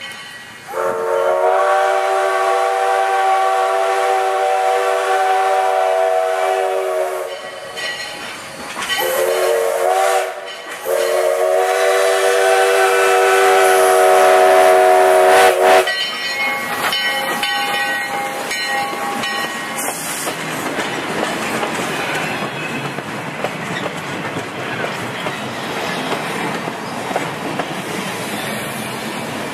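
Steam whistle of a 1907 Baldwin 2-6-0 locomotive sounding a chord of several notes: a long blast, a short one, then another long one. From about halfway through, the locomotive and its wooden passenger coaches roll past close by, a steady rumble and clatter of wheels on the rails.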